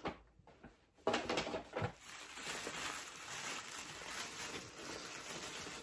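Tissue paper rustling and crinkling as it is pulled out of a gift bag and unfolded by hand. It starts suddenly about a second in with a few sharp crackles, then goes on as a steady, soft rustle.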